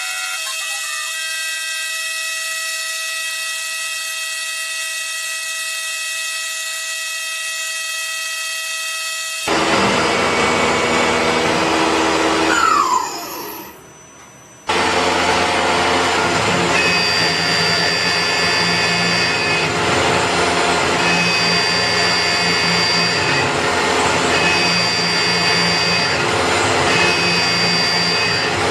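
Metalworking machine tools running: first a steady, high-pitched machine whine, then, after an abrupt change about nine seconds in, louder machining noise that dips briefly and settles into a cycle repeating about every two to three seconds.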